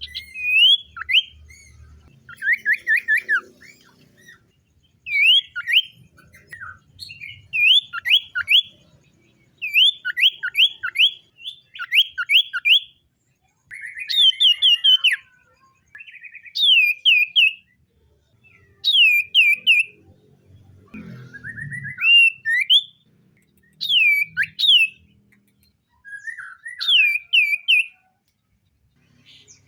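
Common iora singing: short phrases of two to four whistled notes, each sliding down in pitch, repeated every second or two.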